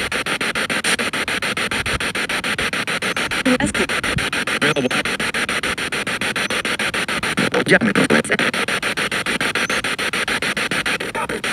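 Spirit box radio sweeping through stations, played through a portable speaker: hiss chopped into a fast, even stutter. Brief snatches of voice-like radio sound break through about three and a half and seven and a half seconds in.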